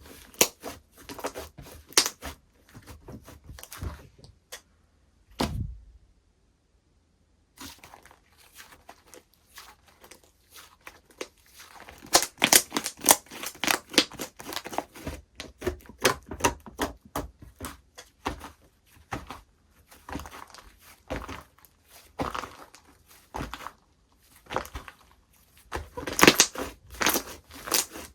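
Slime being squished, stretched and pressed by hand, giving dense crackling, clicking and popping. It breaks off for a short pause of near silence about six seconds in.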